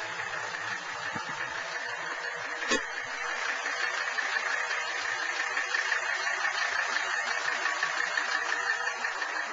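1984 Mercedes-Benz 300SD's five-cylinder turbodiesel idling steadily, a little louder from about four seconds in, with a single sharp knock about three seconds in.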